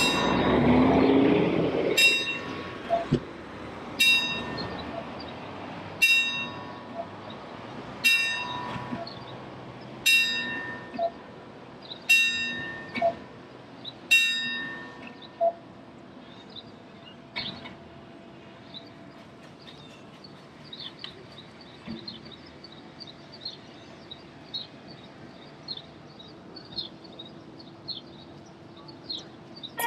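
A clock bell striking about every two seconds, seven or eight ringing strokes that each die away, then faint high chirping.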